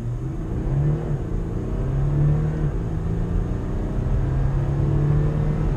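Porsche Macan S Diesel's 3.0-litre V6 turbodiesel under full acceleration, heard inside the cabin. Its pitch climbs in each gear and drops back at upshifts about a second in and again near three seconds, going from first gear to third.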